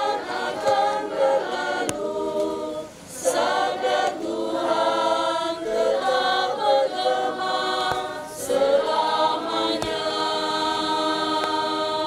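Small choir, mostly women's voices, singing a hymn in phrases with short breaths between them, closing on a long held chord that stops near the end.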